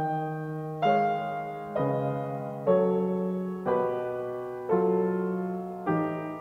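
Solo piano improvisation: slow chords struck about once a second, each left to ring and fade before the next.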